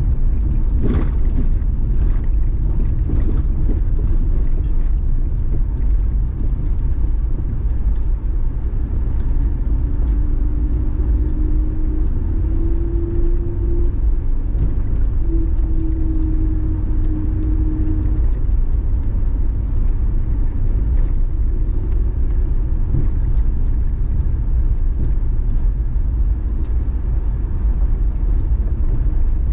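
Mercury Mountaineer SUV driving, heard from inside the cabin as a steady low rumble of engine and road noise. A faint humming tone comes in about ten seconds in and rises slightly in pitch before fading, and a few light knocks sound along the way, the clearest about a second in.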